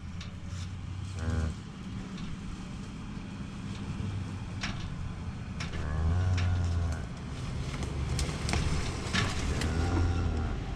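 Side-by-side utility vehicle's engine running at low speed, revving up and easing off three times. Sharp clicks and rattles from the mounted aluminium calf catcher cage.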